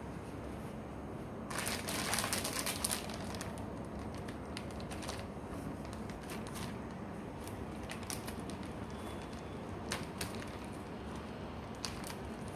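Crinkling and crumpling of a plastic zip-top bag and paper towel being handled: a loud burst about two seconds in, then scattered lighter crinkles and clicks.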